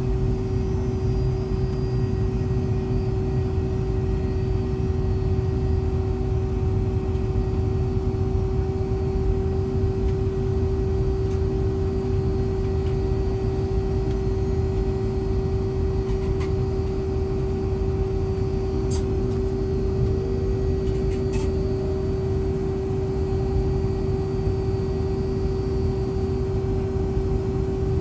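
Steady hum and rumble inside the cabin of a Boeing 757-200 on the ground, with a constant whine over it. A faint tone slowly rises in pitch from about two-thirds of the way through, and there are a few light clicks.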